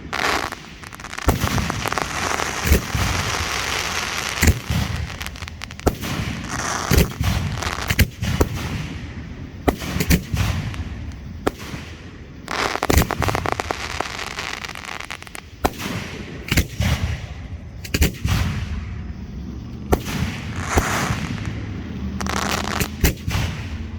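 Fireworks display: a steady run of sharp shell bursts and launch bangs, roughly one a second, mixed with long stretches of crackling and hissing from the bursting effects.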